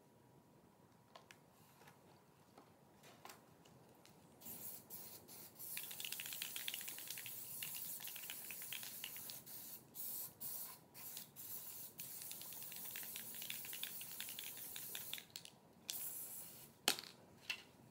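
Plasti Dip aerosol can spraying in a series of hissing bursts, some lasting several seconds, with short pauses between, starting about four seconds in. A sharp knock comes near the end.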